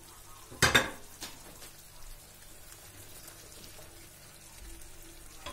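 A single kitchen clatter about a second in, then a faint sizzle from the zucchini and tomato ragout cooking in the frying pan.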